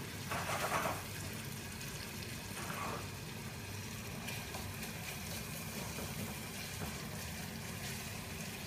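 Onion and mushrooms frying in butter and olive oil in a steel saucepan: a steady sizzle, with a spatula scraping and stirring the pan briefly just after the start and again about three seconds in.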